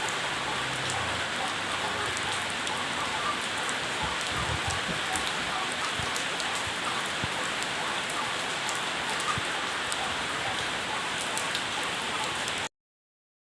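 Steady rain falling, an even hiss with scattered drop ticks, cutting off suddenly near the end.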